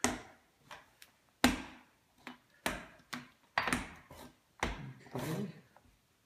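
Rolling pin knocking and rolling on a hard countertop as tortilla dough is rolled out: a series of sharp knocks about once a second, with softer rolling and scraping between them.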